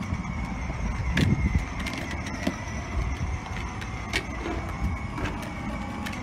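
Battery-powered ride-on toy motorcycle running: a steady electric motor whine over the rumble of its plastic wheels rolling on rough asphalt, with a few sharp ticks and a louder bump about a second in.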